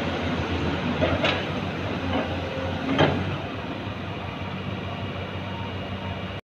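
Cat 50 forklift's engine running steadily as the machine churns with its tyres slipping in loose gravel, with a few sharp knocks about one, one and a half, and three seconds in.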